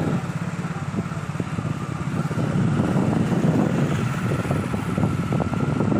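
Diesel bus engine running at close range: a steady, rapidly pulsing low rumble, with a faint steady high tone over it.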